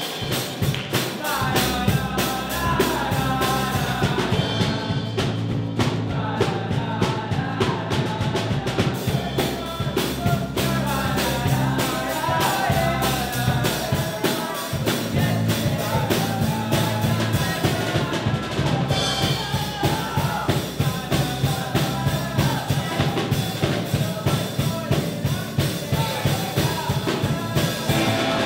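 A rock band playing an upbeat song: a drum kit keeps a steady beat under electric and acoustic guitars and bass.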